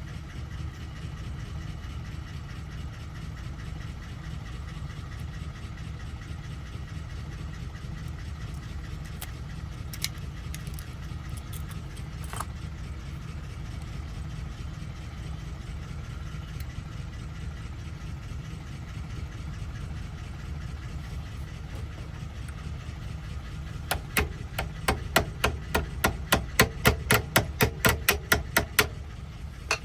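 Steady low hum like an idling engine throughout. About three-quarters of the way in, a run of sharp clicks starts, about four a second, lasting some five seconds.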